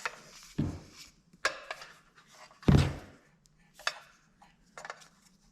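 Scattered clicks, clinks and knocks of hands and tools working the strain-relief fitting on a shop light's power cord, with one louder dull thud about halfway through.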